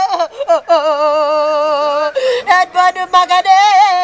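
A woman's high voice singing a drawn-out, wavering lament in long held notes, breaking between phrases, in the manner of a mourning wail.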